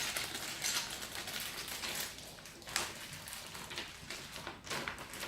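Paper rustling and crinkling as a large folded instruction sheet is handled and opened out, with a few sharper crackles.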